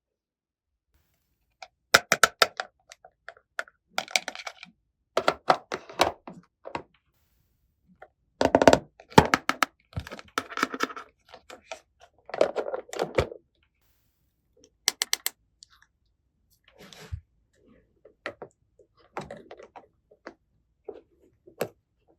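Small hard plastic toy pieces clicking, tapping and knocking in short clusters, with silent gaps between them.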